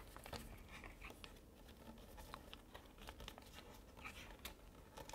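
Very faint paper rustling and light scraping as a folding card is pressed and drawn along the rolled leading-edge fold of a paper airplane to crease it, with scattered soft ticks.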